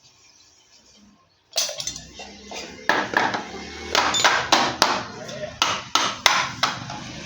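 A series of sharp metallic knocks and clinks, a few a second and irregularly spaced, starting about a second and a half in, over a low hum.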